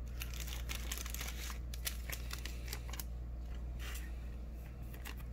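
Panini Mosaic trading cards being handled and sorted by hand, a scatter of light rustles, slides and clicks, over a steady low hum.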